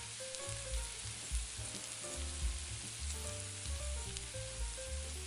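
Chopped peppers, onions and garlic sizzling in a stainless steel sauté pan as they are stirred with a metal spoon: a steady frying hiss with a few small spoon knocks. Soft background music plays underneath.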